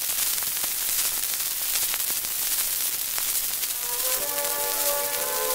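Surface hiss and crackle of an old 78 rpm Columbia disc record, with scattered clicks. About four seconds in, the recorded music begins with several sustained notes of the instrumental introduction.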